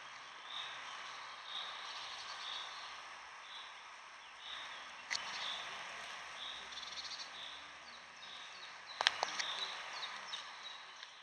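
Outdoor summer countryside ambience: a steady hiss with a high chirp repeating about once a second, and a stretch of rapid high trilling from small animals. Two sharp clicks, one about five seconds in and a louder one about nine seconds in.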